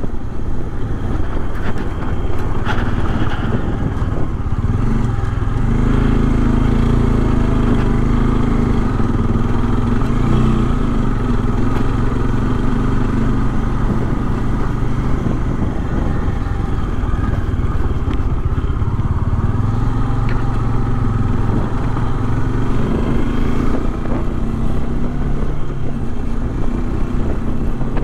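Bajaj Dominar 400's single-cylinder engine running steadily while riding, its note holding at a fairly even pitch and growing stronger in a couple of stretches as the throttle changes.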